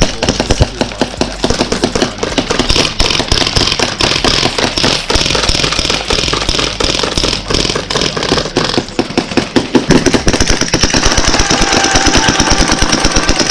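Airsoft guns firing in rapid, near-continuous strings of clicking shots on full auto.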